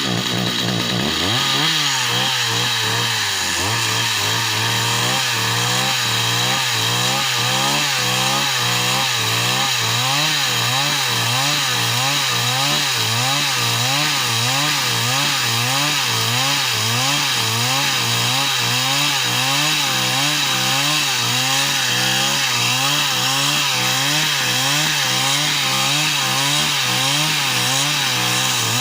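Chainsaw running loud and continuously, its engine pitch rising and falling about once a second.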